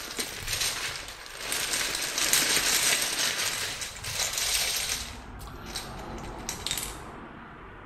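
Loose plastic keycaps tipped out of a bag onto a countertop: a dense clatter of many small clicks, followed by a few separate clicks as they are spread out by hand, fading near the end.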